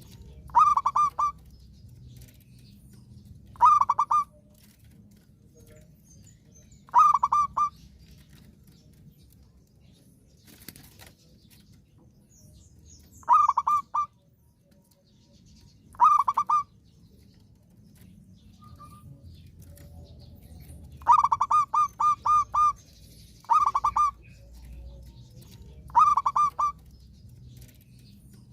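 Zebra dove (perkutut) singing: short phrases of rapid staccato coos, repeated every few seconds, about eight times.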